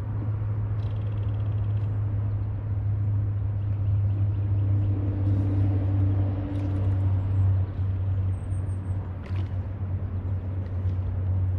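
Bass boat's bow-mounted electric trolling motor running with a steady low hum, while a fishing reel is cranked to bring in a bass, giving a brief whir in the middle.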